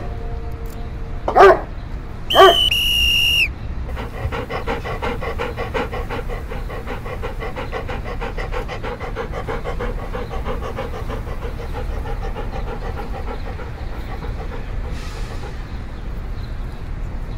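Trained K9 German Shepherd barking twice, followed by a brief, high, shrill tone lasting about a second. From about four seconds in the dog pants fast and evenly.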